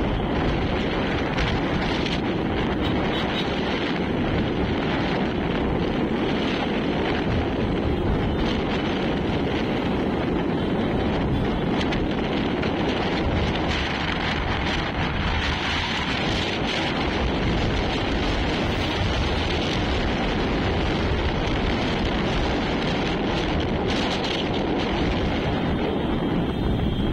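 Steady rumble of a double-decker bus under way, with wind buffeting the microphone.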